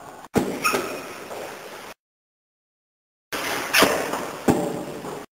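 A few sharp knocks and clatters in two short bursts, about a second in and again near four seconds, split by more than a second of dead silence.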